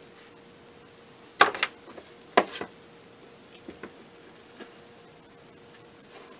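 Spot welder firing twice about a second apart through handheld electrodes, welding nickel strip onto salvaged lithium-ion laptop cells: each weld a short, sharp snap of a few quick spikes. A few small ticks follow, over a faint steady hum.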